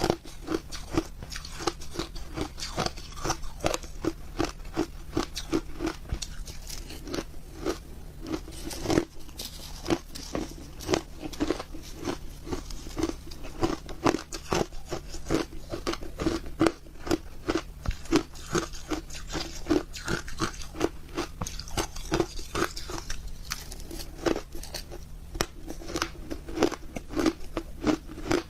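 Close-up crunching and chewing of ice in a mouth: a rapid, continuous run of short crisp crunches, several a second.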